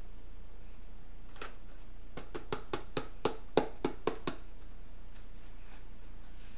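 A quick run of about ten light taps or knocks, roughly five a second, lasting about two seconds and following a single tap a moment before, over a steady low hum.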